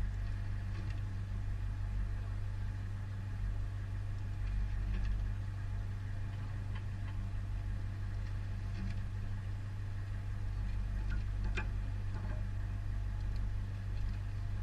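Military vehicle's engine idling, a steady low hum, with a few faint clicks scattered through it and a sharper click near the end.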